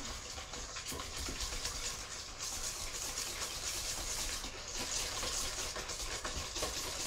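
Wire balloon whisk beating eggs and brown sugar in a stainless steel bowl: fast, steady strokes with the wires ticking and scraping against the metal.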